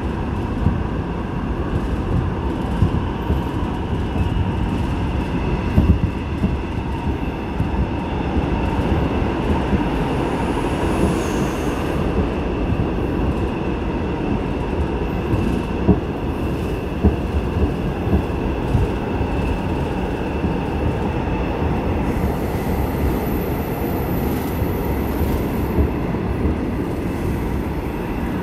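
Seoul Line 8 subway train running at speed through a tunnel, heard from inside the car: a steady rumble of wheels on rail with a thin, steady whine above it.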